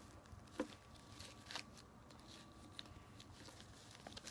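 Faint handling of a sheet of paper being folded: a few soft, separate clicks and light rustles over a quiet room.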